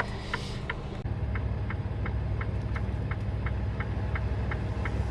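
Semi truck's diesel engine idling in the cab while stopped in traffic, a steady low drone that gets a little stronger about a second in, with a steady clicking about three times a second over it.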